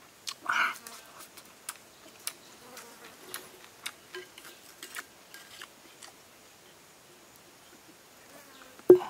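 A person eating: chewing fresh herbs with small clicking crunches and a short mouth sound about half a second in. Insects buzz, and just before the end there is a sharp knock with a short ring.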